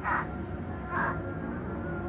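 Masked laughingthrush (poksay hongkong) calling: two short calls about a second apart.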